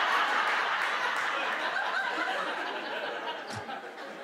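Audience laughter from a crowd, slowly dying down.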